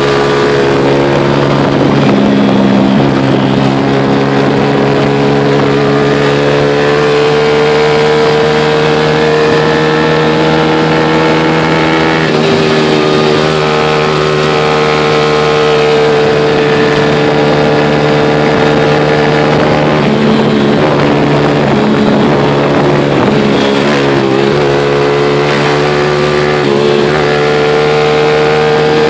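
A vehicle's engine runs steadily as it travels along the road downhill. Its pitch rises slowly, then drops back suddenly about twelve seconds in and again near twenty-four seconds in.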